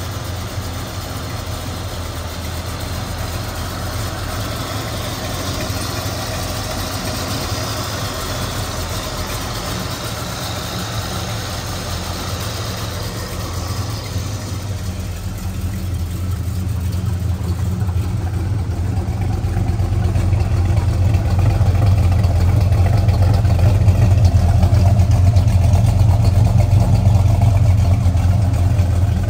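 1975 Ford Fairlane's 351 V8 idling steadily, with no revving. It is heard first at the open engine bay, with more high-pitched mechanical noise. Then it is heard at the tailpipe, where the exhaust note is deeper and louder.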